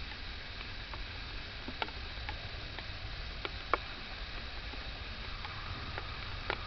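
Steady rain hiss with irregular sharp ticks scattered through it, the loudest a little past halfway.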